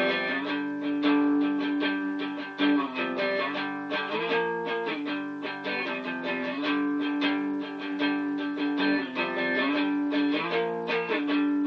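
Guitar music without singing: an instrumental break in a rough home-recorded song demo, with strummed chords over held notes.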